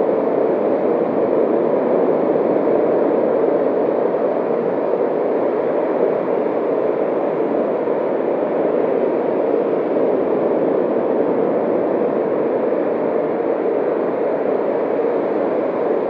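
The 'ocean in a seashell' sound, as heard with a seashell held to the ear: a steady rushing noise, strongest in the lower middle range, with no breaks or changes.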